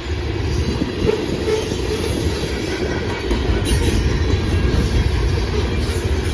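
Loaded coal train's hopper cars rolling past: a steady, loud rumble of steel wheels on rail.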